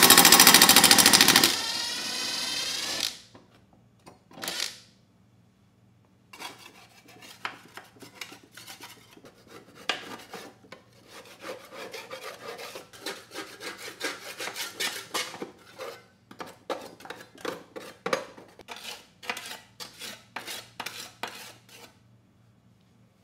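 A power tool runs loudly for about a second and a half and winds down. After a short pause comes a long run of quick, uneven scraping strokes, a scraper working caked grass and dirt off the underside of the Toro Recycler mower deck.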